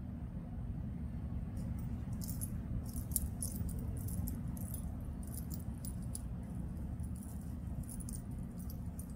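Metal tags on a small dog's collar jingling in quick, irregular clinks as the dog walks through the grass, starting about a second and a half in. A steady low rumble lies underneath.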